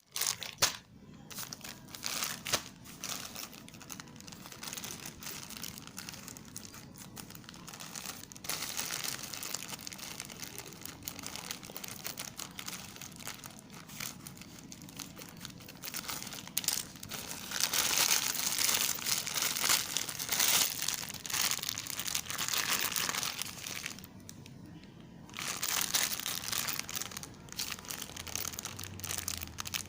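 Plastic parcel packaging crinkling and rustling as it is torn open by hand and a bag of water balloons is unpacked. The rustling is busiest in the second half, with a short pause near the end.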